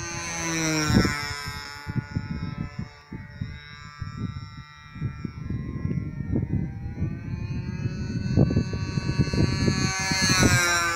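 Radio-controlled aerobatic model plane's engine buzzing overhead, its pitch dropping as it passes about a second in, then rising and falling again as it makes another pass near the end. Irregular low rumbles of wind on the microphone run underneath.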